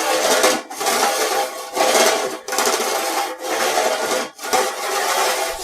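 Wrinkled metal plates scrubbed back and forth against each other: a harsh, rasping scrape in repeated strokes, about one a second, with a faint metallic ring.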